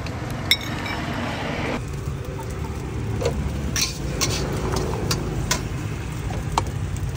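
A metal spatula clinks and scrapes against a steel wok as rice is stir-fried, giving a string of sharp, irregular clicks over a steady low rumble.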